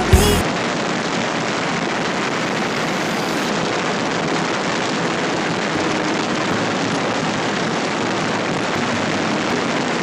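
Background music cuts off just after the start, leaving a steady rush of wind and road noise from a moving vehicle, with no clear engine note.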